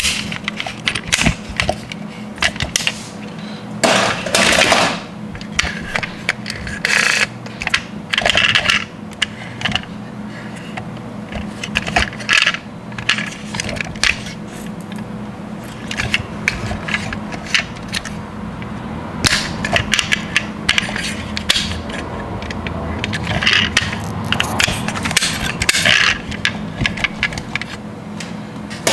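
Die-cast metal toy cars being handled: small clicks, scrapes and clinks of the metal bodies and their opening doors, with a few louder bursts of clatter, the first about four seconds in.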